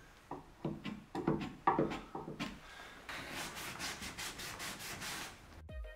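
A chisel scraping excess glue off the edge of a wooden newel post at the stair foot in a run of short strokes, then a damp rag wiping along the wooden bottom step from about three seconds in.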